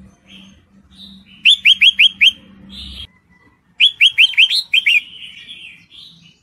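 Red-whiskered bulbul calling: two quick runs of sharp, falling notes, about five in the first and seven in the second a second and a half later, with softer chattering notes around them. The call is offered as a female in breeding condition calling to a male.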